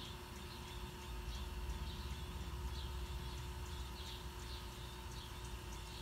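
Faint, short, high bird chirps repeating about every half second, over a steady low rumble and a thin electrical hum.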